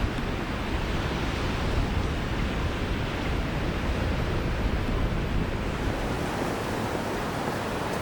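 Sea surf washing onto a sandy beach, a steady wash of waves, with wind rumbling on the microphone that eases about six seconds in.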